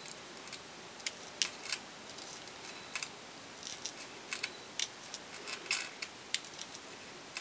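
A dozen or so faint, irregular clicks and scrapes of a beading needle picking up tiny 11/0 glass seed beads (rocailles).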